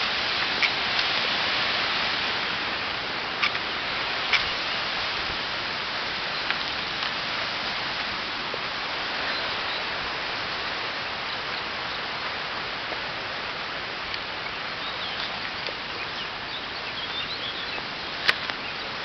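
Steady rushing hiss of a mountain stream, slowly fading. A few sharp clicks stand out, and small birds chirp faintly near the end.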